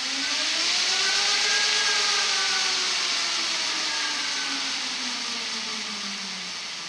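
Yatri electric motorcycle's drive motor spinning the rear wheel with no load, the bike up on a stand. Its whine rises in pitch to a peak about two seconds in, then falls away as the wheel slows, over a steady hiss.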